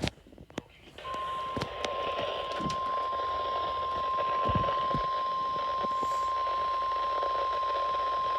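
A single steady National Weather Service 1050 Hz warning alarm tone, received over a weather radio with radio hiss beneath it, begins about a second in after a few clicks. The tone is the alert signal that comes before a broadcast warning, here a severe thunderstorm warning.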